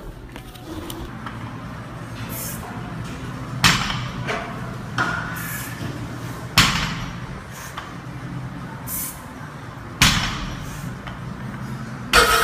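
Barbell loaded with Eleiko bumper plates set down on a lifting platform between deadlift reps: four sharp, loud thuds a few seconds apart, each ringing briefly, over steady gym background noise.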